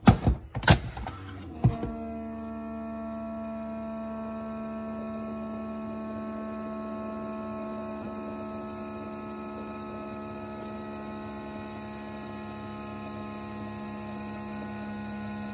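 Keurig single-serve coffee maker: a few clicks and knocks in the first two seconds as the lid is pressed shut on the pod, then the machine runs with a steady hum as it starts its brew cycle, before any coffee flows.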